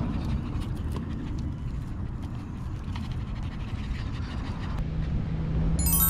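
A Maltese dog panting, over a steady low rumble of wind on the microphone. Near the end a quick run of bright chime notes comes in.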